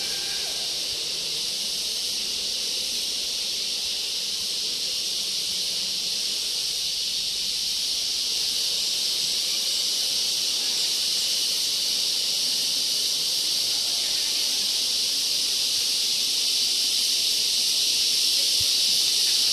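Steady, high-pitched insect chorus, a continuous dense drone that grows slowly louder.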